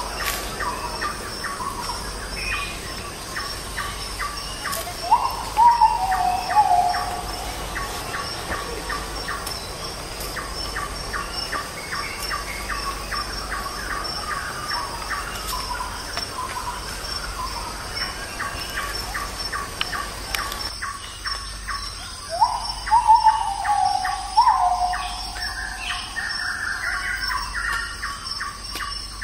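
Wild birds calling: a steady fast series of short chirps runs under a louder call that sweeps up and then steps down in pitch, given twice about seventeen seconds apart.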